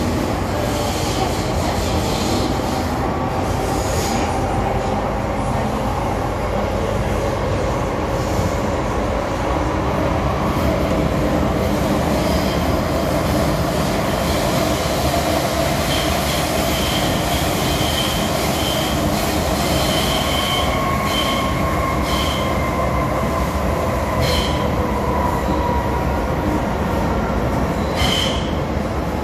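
MTR M-Train subway train running through a tunnel, heard from inside the carriage: a steady rumble of wheels and motors on the track. In the second half short high wheel squeals come again and again, and a faint whine slowly falls in pitch.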